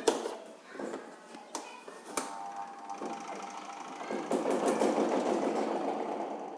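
Spin dryer of a manual twin-tub washing machine: a few sharp knocks and clicks, then its motor starts about two seconds in and spins up with a rough, rapid rattle that grows louder about four seconds in. This is the harsh knocking of a faulty spinner, usually from a damaged rubber part.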